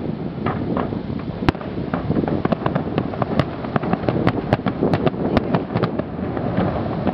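Fireworks display with aerial shells bursting in quick succession: a continuous low rumble of booms overlaid with many sharp cracks and pops, growing dense from about two seconds in.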